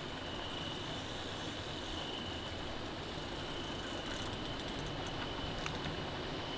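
Night insects trilling in one continuous high note over a steady background hiss, with a few faint clicks about four to six seconds in.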